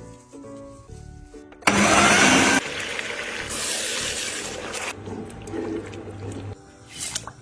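Electric kitchen mixer grinder running: a loud burst of motor-driven grinding noise starts suddenly about two seconds in, then settles into a steadier whir with a low hum, over background music.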